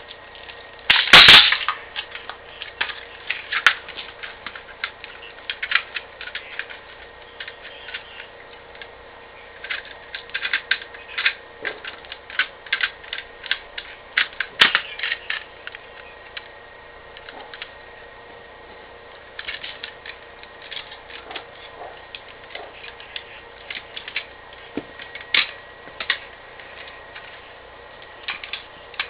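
Clicks and clacks of a Crosman Stinger R34 airsoft rifle being taken apart by hand, as parts are unclipped, slid off and set down, with a louder clatter about a second in.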